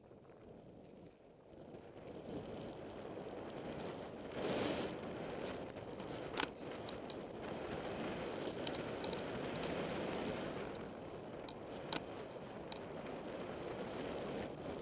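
Mountain bike rolling fast down a gravel trail: a steady rush of tyres on loose gravel mixed with wind on the microphone, swelling louder about four and a half seconds in. Two sharp knocks from the bike, about six and twelve seconds in.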